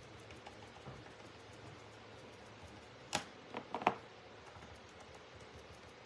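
A few light clicks and taps from small painted wooden craft pieces being handled on a tabletop, clustered about three seconds in.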